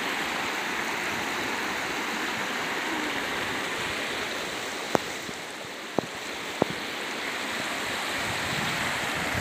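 Shallow stream running steadily over river stones, a continuous rushing. Three short sharp clicks, about five, six and six and a half seconds in, stand out above it.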